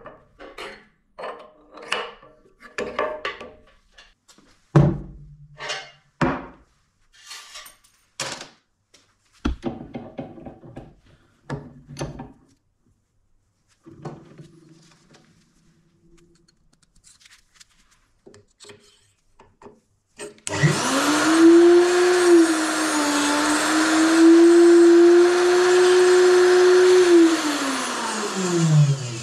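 Knocks and clatter of a Neutrix WAG 40 tungsten electrode grinder being handled and clamped in a vise. About two-thirds of the way through, its motor starts with a quick rise to a steady high whine. It runs for about seven seconds, dips briefly once, and winds down near the end.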